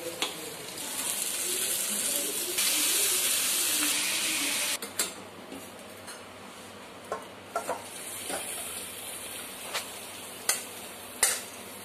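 Wet curry sizzling in a steel kadai while a spatula stirs it, a steady hiss that stops suddenly about five seconds in. Then a series of metal clinks and scrapes as the spatula and the steel kadai knock while the curry is tipped into a steel pot.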